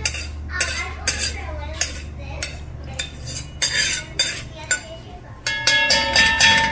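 A long metal spoon scrapes and knocks against a large steel pan, spreading a film of oil around it. Near the end the pan rings for a moment after a harder knock.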